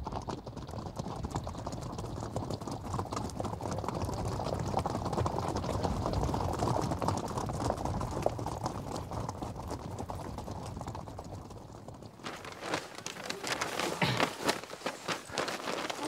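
Hoofbeats of Icelandic horses being ridden over rough, stony ground, a steady run of rapid clopping. About twelve seconds in, this gives way abruptly to sharper, scattered crackles and knocks.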